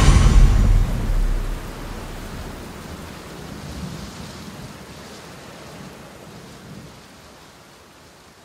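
A deep boom right at the start, its rumble dying away over about a second and a half, then a soft, rain-like hiss that slowly fades out.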